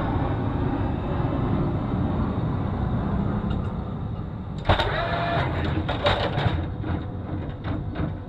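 A steady low rumble, then about halfway through a sudden mechanical clatter with a brief whine and a string of irregular knocks as a Phalanx close-in weapon system mount slews and elevates its gun on a warship's deck.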